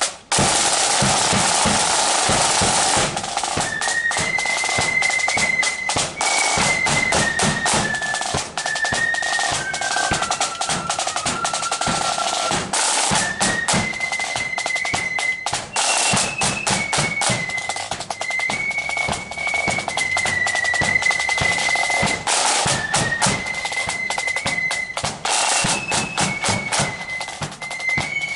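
Marching flute band playing: snare drums roll alone for about three seconds, then the flutes come in with a tune in unison over rattling snare drums and a bass drum beat.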